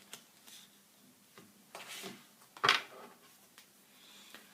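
Tarot cards being handled: faint rustles and small clicks, with one short, louder papery snap a little over halfway through as a card is drawn.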